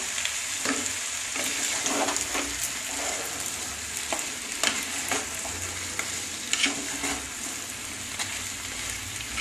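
Chicken pieces and chopped vegetables sizzling in hot oil in a nonstick wok, under a steady hiss. A wooden spatula stirring them scrapes and knocks against the pan at irregular moments.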